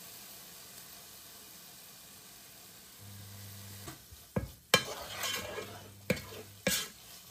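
Mushrooms and onions sizzling quietly in a frying pan. About four seconds in, a wooden spoon starts stirring them, with sharp knocks and scrapes against the pan.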